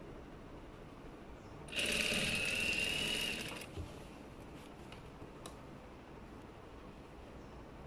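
Industrial lockstitch sewing machine running in one burst of about two seconds, stitching a seam with a steady high whine. It stops, and two light clicks follow.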